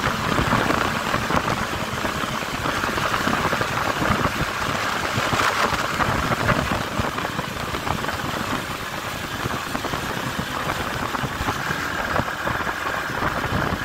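Motorcycle riding at speed: a steady rush of wind and road noise over the running engine.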